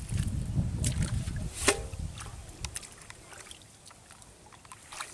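Splashing and sloshing of shallow muddy paddy-field water as a man wades and works barefoot at its edge, over a low rumble for the first second and a half. About a second and a half in comes one sharp clank with a brief ring, from the aluminium bowl being set down.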